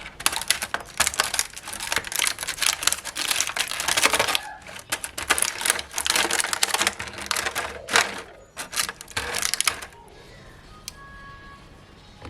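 Rapid clicking and crackling of plastic packaging and small plastic toy pieces being handled during a toy unboxing. It stops abruptly about ten seconds in, leaving a few faint steady tones.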